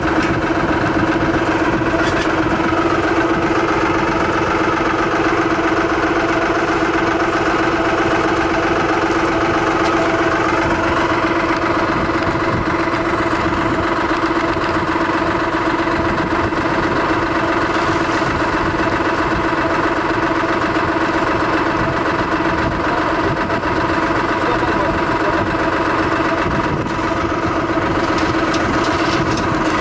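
Engine of a Dando 4000 cable percussion drilling rig running steadily at idle.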